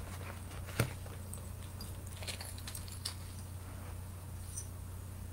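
Costume jewelry being handled: a sharp click about a second in, then a few light metallic clicks and rattles around the two-to-three-second mark, over a steady low hum.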